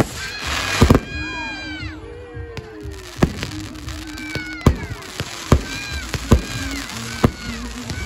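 Fireworks display: aerial shells bursting with sharp bangs about once a second, several of them trailed by falling whistles.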